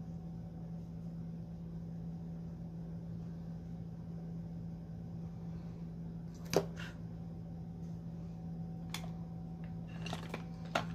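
Steady low hum of room tone, with a few sharp clicks and taps from makeup items being handled: the loudest about six and a half seconds in, a lighter one around nine seconds, and a short cluster near the end.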